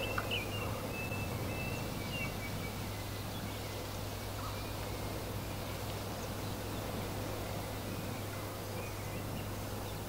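Steady wind blowing with birds singing: a run of short high chirps and trills in the first two seconds, then only a few faint chirps over the wind.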